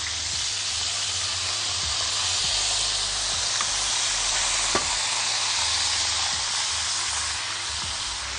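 Kofta cordon bleu, minced-meat rolls stuffed with cheese, frying in very hot oil with a steady sizzle. There is one faint click about five seconds in.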